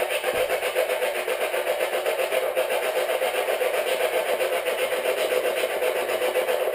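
Spirit box, a radio scanner sweeping the AM band, running continuously: steady static chopped several times a second as it skips from station to station.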